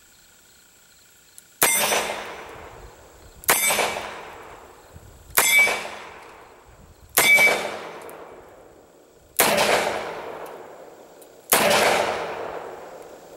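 Colt Lawman Mk III .357 Magnum revolver with a 4-inch barrel firing six shots about two seconds apart: the first three are .38 Special rounds and the last three are hot .357 Magnum loads. A faint metallic ring follows several of the earlier shots, a steel target being hit, and is absent after the last two, which miss.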